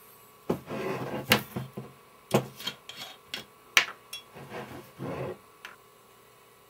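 A glass liquor bottle being picked up and handled on a wooden desk: a few sharp knocks and clinks with rubbing and scraping between them, then quiet near the end.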